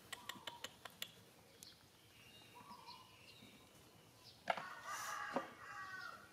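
Chickens clucking and small birds chirping, with the loudest run of calls about four and a half seconds in; a few light taps sound in the first second.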